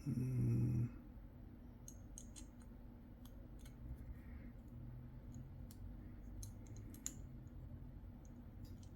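Light scattered clicks and taps of small transmission gears and parts being handled and fitted into a TRX-4M gearbox case. A short voiced hum sounds at the very start.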